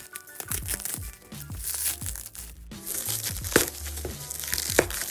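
Packaging being handled and opened: wrapping crinkling and rustling, with two sharp cracks near the end, over background music.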